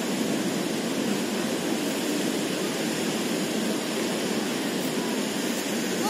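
Steady rushing of a waterfall, an even, unbroken roar of falling water.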